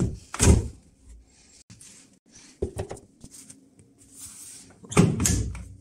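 Door of a Whirlpool front-loading washing machine handled: a clunk as the door is pulled open about half a second in, lighter knocks and rustling a couple of seconds later, and a heavier thud near the end as the door is swung shut.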